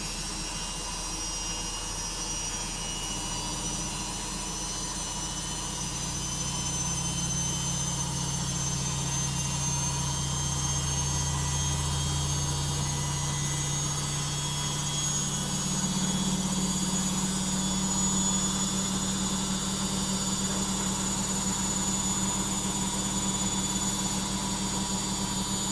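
LOGIK washing machine's drum accelerating in its final spin: a hum that climbs in steps and settles into a steady high-speed spin about two-thirds of the way through, with a faint high motor whine rising slowly above it.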